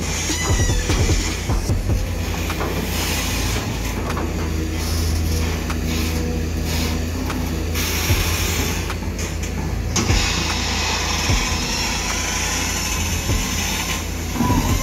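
Diesel engine of a large tracked hydraulic excavator running steadily under load, with a high hiss and a few scattered knocks as the boom and bucket dig and push sand.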